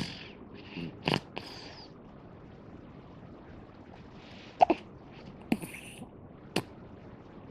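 A sleeping baby snoring softly: a few short, breathy snuffles through the nose, with sharp little clicks in between and quiet stretches between breaths.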